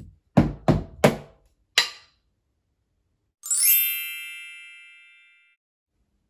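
Drumsticks playing a rhythm on the floor and a cardboard box: a soft floor tap, two hits on the box's side, one on its top, then a sharp click of the sticks together. About three and a half seconds in, a bright chime sound effect with a falling sparkle rings out and fades over about two seconds.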